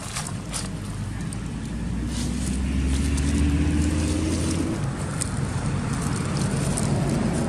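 A motor vehicle's engine going past, its pitch rising over a couple of seconds and loudest about three to four seconds in before it eases off. A few crackles of dry leaves underfoot come near the start.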